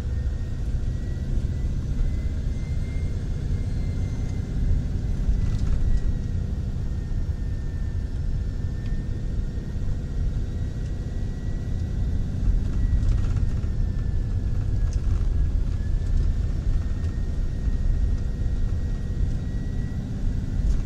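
Motorhome driving on the road, heard from inside the cab: steady engine and tyre rumble, with a faint thin high whine that drifts slightly up and down in pitch.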